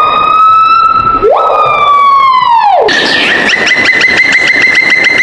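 Siren sound. A held wailing tone sweeps up, holds, then falls away. About three seconds in it switches to a rapid pulsing yelp over a steady higher tone.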